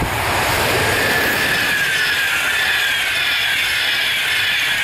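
PKP Intercity EU44 electric locomotive and its passenger coaches passing close at speed: a loud, steady rushing of wheels on rail, with high ringing tones that slide slowly lower as the coaches go by.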